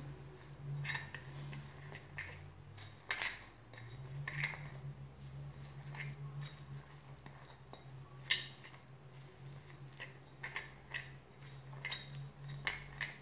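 Metal spoon stirring a thick oily paste in a ceramic bowl, with irregular scrapes and clicks of the spoon against the bowl and a sharper clink about eight seconds in.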